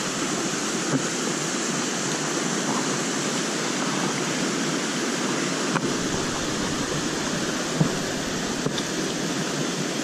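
Steady rushing of a clear trout stream's flowing water, with a few faint clicks as the landing net is handled.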